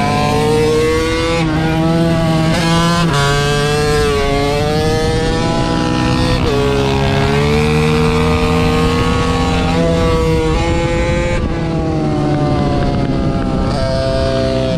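Small motorcycle engines running under way, the pitch rising and falling again and again as the throttle is opened and closed.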